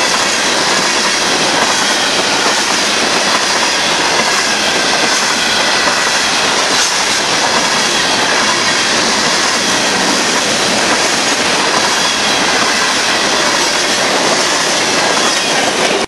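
Freight cars of a loaded grain train rolling past at steady speed: continuous steel wheel-on-rail noise, with faint high squealing tones from the wheels.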